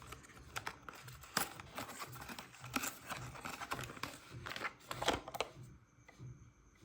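A small cosmetics package being opened by hand: crinkling, tearing and scratching of the wrapping, with a run of sharp clicks and snaps. It dies down about five and a half seconds in.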